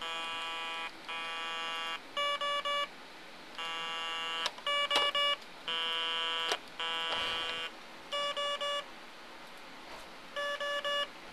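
Furby in debug mode sounding buzzy electronic tones: steady tones about a second long alternate with sets of three quick beeps. A few handling knocks fall between them.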